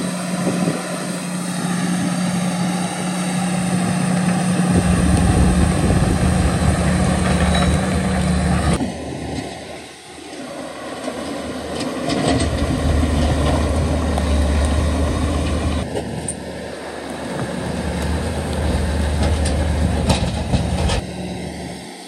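Heavy diesel earthmoving machinery running, bulldozer and dump truck engines, a steady low hum with a deeper engine note that comes and goes and a few knocks. The sound changes abruptly about nine, sixteen and twenty-one seconds in.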